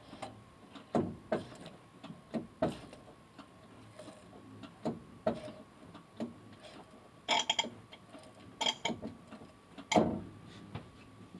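Irregular clicks and short gurgling spurts as old clutch fluid and air are pumped out of the slave cylinder's open bleeder valve, through the hose and into a bleeder catch bottle.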